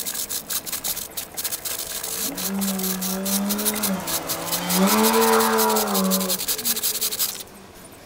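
Stiff bristle chain brush scrubbing a motorcycle drive chain wet with chain cleaner: quick, rasping back-and-forth strokes that stop shortly before the end. A low droning tone sounds twice through the middle, each time for a second or two.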